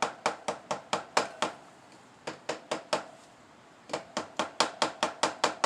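Quick series of light metallic taps, about four a second, in three runs separated by short pauses, as a tool works the front wheel shaft into position.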